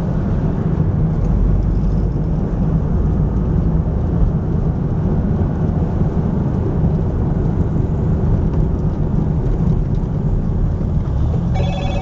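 Volkswagen Beetle's air-cooled flat-four engine running steadily as the car drives along, heard from inside the cabin.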